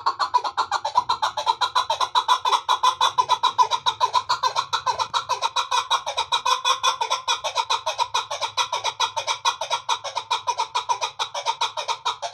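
Chukar partridge calling: a fast, steady run of clucking notes, about ten a second, kept up without a pause and stopping abruptly near the end.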